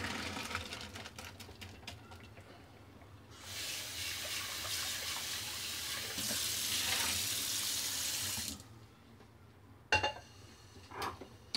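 Boiled soybeans and their hot cooking water pour into a silicone colander in a stainless steel sink, with water splashing and draining away. A stronger, steady rush of water into the sink starts about three seconds in and lasts about five seconds. A couple of sharp knocks come near the end.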